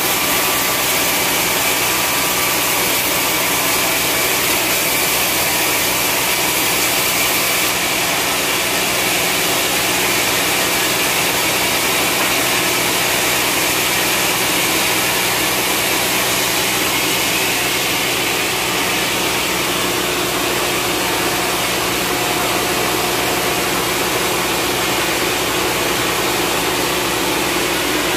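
Horizontal band sawmill running with its blade cutting lengthwise through a long, dry, hard log: a steady rushing noise with a thin high tone over it.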